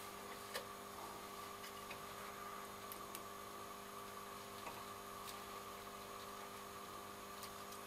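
Faint, light clicks of magnetic tape and spools being handled while the tape is threaded through a reel-to-reel tape deck, over a steady low hum.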